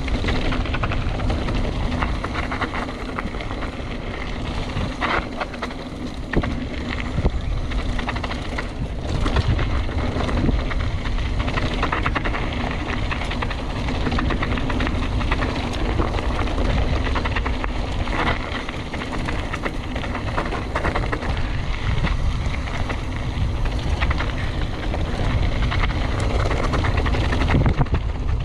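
Mountain bike descending fast on a trail: wind buffeting the helmet camera's microphone over the rolling rumble of the tyres, with scattered knocks and rattles from the bike over rough ground.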